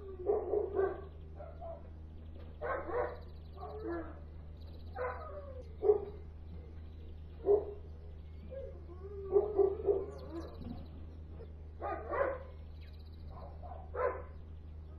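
Dogs barking in short, irregular bursts, a bark or a quick run of barks every second or two, over a steady low hum.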